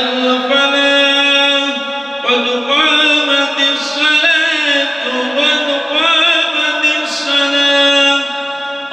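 A man's voice chanting the prayer recitation in a slow, melodic style through a microphone, holding long notes with ornamented bends and brief pauses between phrases.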